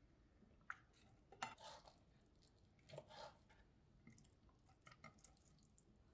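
Faint, scattered taps and scrapes of a kitchen knife on a plastic cutting board as boiled moose lip is sliced into pieces.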